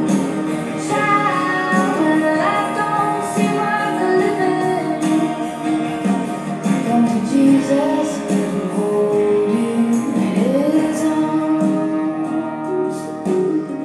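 Music with a woman singing a gliding melody over instruments.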